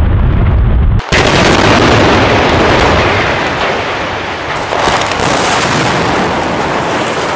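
Explosive demolition of a coal-fired power station building: a deep rumble, then about a second in a sudden loud, dense crackle and rush of demolition charges firing and the structure collapsing, easing a little and swelling again near the middle.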